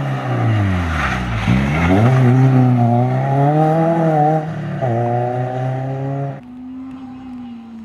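Renault Clio rally car's engine passing close on a wet road, its pitch falling as it goes by, with a hiss of spray. The revs then climb hard as it accelerates away, break off briefly for a gear change about four and a half seconds in, and climb again before the sound drops away sharply near the end.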